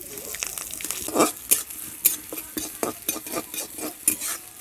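Sliced onions sizzling in hot oil in a metal kadai, with a flat metal spatula scraping and knocking against the pan about twice a second as they are stirred.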